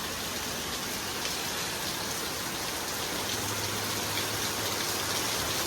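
Heavy rain from a squall line falling steadily, a dense, even hiss.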